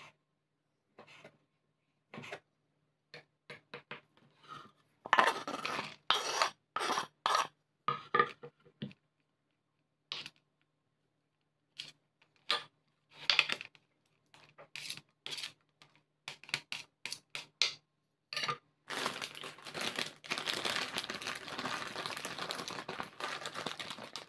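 Kitchen knife knocking on a bamboo cutting board as knack sausages are sliced, with scraping and clatter while the slices are cleared off the board. Near the end comes a long stretch of rustling as a plastic bag of grated cheese is handled.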